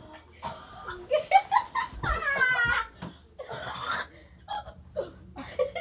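A girl laughing in several bursts, loudest about two seconds in.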